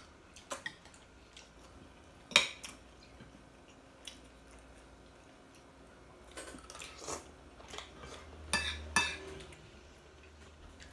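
Spoon and fork clinking and scraping against ceramic plates as food is eaten: scattered sharp clinks, the loudest about two seconds in, with a cluster of them in the second half.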